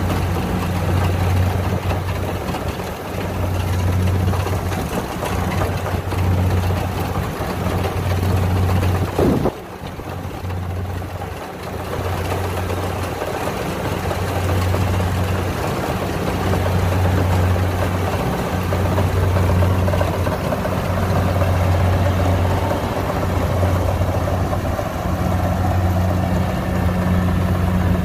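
Kubota DC70 combine harvester's diesel engine and threshing machinery running steadily while cutting and threshing rice, with a low hum that swells and fades about once every second or so.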